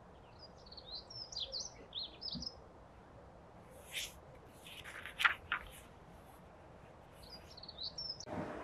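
A small songbird singing short, quick warbling phrases in two spells. Between them, and again near the end, brief papery rustles as the pages of a hardback book are handled and turned.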